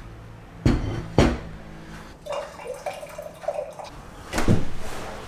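Ceramic plates and dishes being set down on a table: two sharp clinks about half a second apart, a faint wavering squeak in the middle, and a louder clunk with a short ring near the end.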